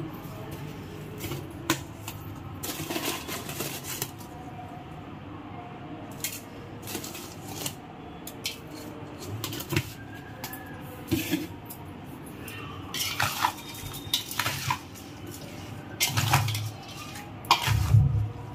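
Stainless steel spatula scraping and clinking against a steel mixing bowl while stirring chunks of raw mango coated in pickle masala. Scattered clinks and scrapes, with a louder run of stirring near the end.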